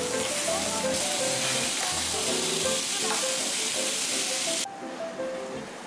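Lobster meat sizzling on a hot teppanyaki griddle as it is cut up and sauced. The sizzle cuts off suddenly near the end.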